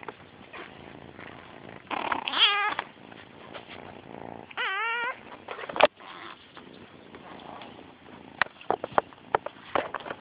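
A kitten meowing twice, two short calls about two and a half and five seconds in, followed by several sharp clicks.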